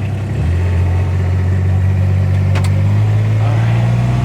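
A vehicle engine running just after being started, a steady low hum whose pitch shifts about half a second in and climbs a little in the last second or so.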